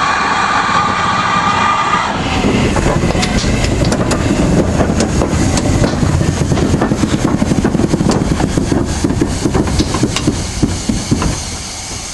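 GWR 42xx class 2-8-0T steam locomotive No. 4247 passing slowly at close range. A steady high tone ends about two seconds in, then a low rumble with rapid clanking and clicking of wheels and running gear on the rails, fading about a second before the end.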